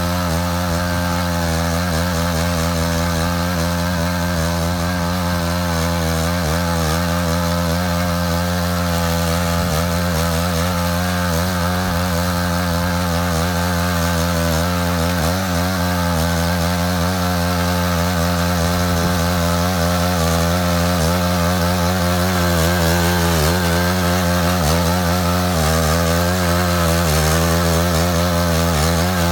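Engine of a Matsuda power tiller with a ditching attachment running steadily under load as it cuts a trench, its pitch wavering slightly.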